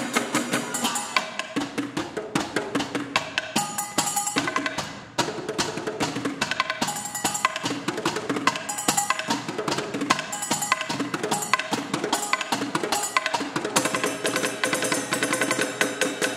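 Percussion ensemble playing kitchenware as instruments: a fast, dense run of strokes with metallic ringing tones, mixed with drum hits.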